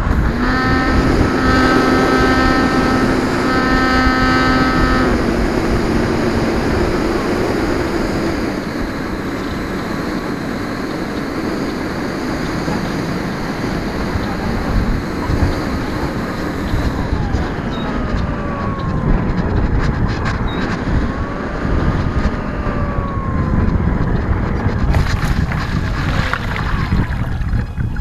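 Electric motor of an E-flite Apprentice RC floatplane running under power, heard from its onboard camera over a loud rush of wind and water noise as it taxis and lifts off the water. A steady motor whine for the first five seconds or so, then pitches that rise and fall with the throttle.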